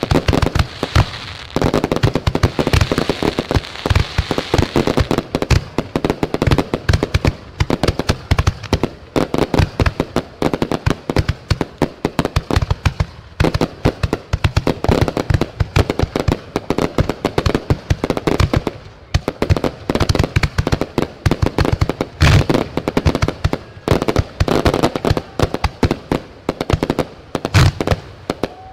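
Fireworks going off in a dense, unbroken barrage of sharp bangs and crackles, many a second.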